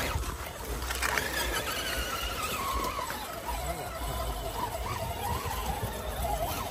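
Whine of a 1/10-scale RC crawler's brushless electric motor and three-gear transmission as it climbs over rock, the tone wavering and sliding up and down in pitch.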